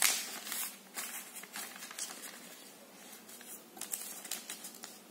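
Sheet of origami paper rustling and being creased by hand as it is folded in half, in a string of short, separate swishes and scratches.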